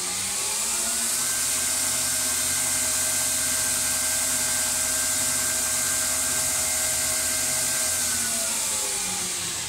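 Belt grinder with a small-wheels attachment running with no workpiece: the motor and belt whine rises in pitch as it speeds up, runs steady for about seven seconds, then falls in pitch as it slows down near the end.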